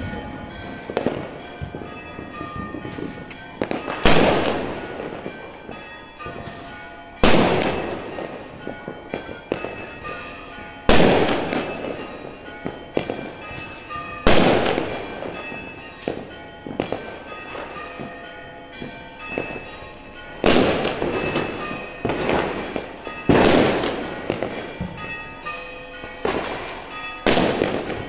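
Fireworks bursting in the sky: seven loud booms, about every three to four seconds, each trailing off into crackle, with smaller pops and crackling in between.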